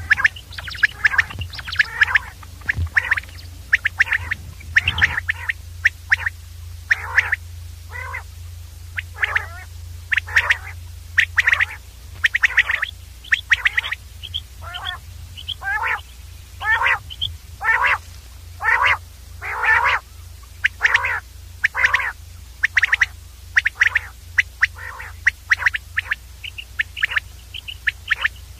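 Common quail calling over and over, short sharp calls coming about once a second, with a steady low hum underneath.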